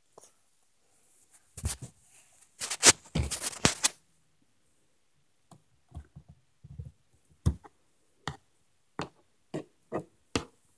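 A thump and some rustling in the first few seconds, then a run of six light knocks near the end, roughly two-thirds of a second apart.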